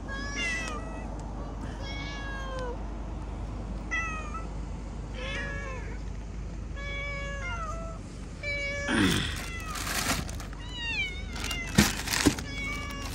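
Several stray cats meowing repeatedly, begging to be fed, about one meow every second or so. The meows grow more frequent and overlap in the last few seconds, with bursts of rustling noise and two sharp clicks near the end.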